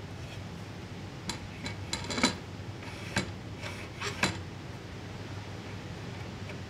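A handful of light clinks and taps of small hard objects being handled, the loudest about two seconds in, over a steady low hum.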